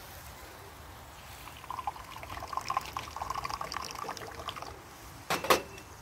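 Tea poured from a Moroccan teapot into a glass, a trickling splash lasting about three seconds, followed near the end by one sharp clink of glass.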